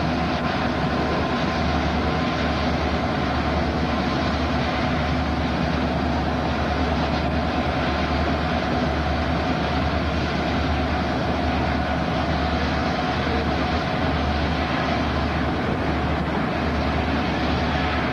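Freight train cars, boxcars and autoracks, rolling past on the track with a steady rumble and a low beat repeating about once a second.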